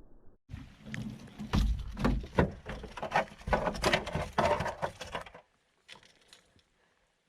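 A rapid, irregular run of knocks, clicks and clattering for about five seconds, then it stops abruptly.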